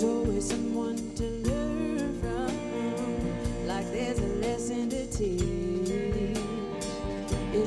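A band playing a song: drum kit hits keep a steady beat under held chords and a gliding, wavering melody line.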